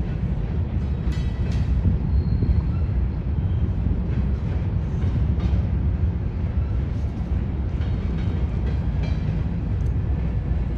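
A train rolling past on the rails: a steady low rumble of wheels and cars, with a few faint clicks scattered through it.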